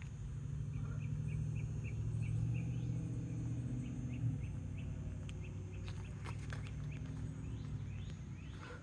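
Small bird calling in quick runs of short chirps, about four a second, with a few rising notes, over a steady low hum.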